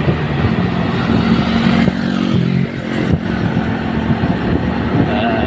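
Motorcycle engine running at riding speed, heard from on board over a steady rush of road noise; its note shifts about two and a half seconds in.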